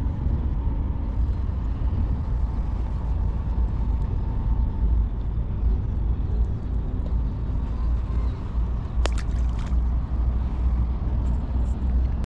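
A steady low rumble, with a short cluster of sharp clicks about nine seconds in.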